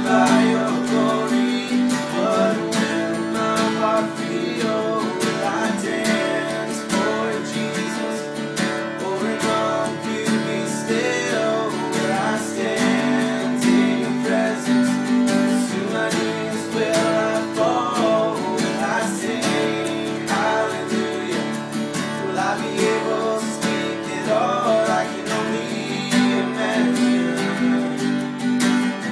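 Two acoustic guitars strummed together, with a man singing a slow song over them.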